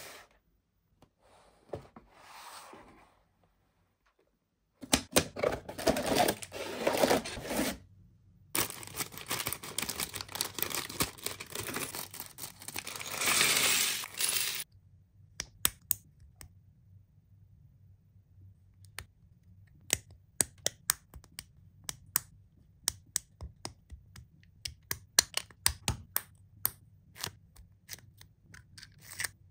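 Toy packaging being torn open by hand: several seconds of dense tearing and rustling, then a long run of small sharp clicks.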